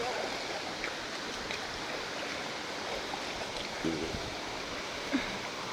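Steady rush of flowing stream or river water, with brief bits of a voice about four and five seconds in.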